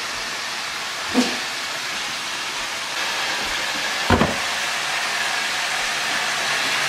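Chicken deep-frying in a pot of hot oil, a steady sizzling hiss that grows a little louder about halfway through, with two short knocks, about a second in and about four seconds in.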